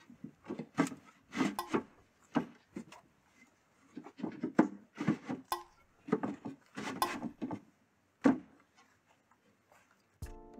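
9 mm plywood divider panels being slid into one another's slots and set in place: a string of irregular wooden knocks and clacks with some scraping between them.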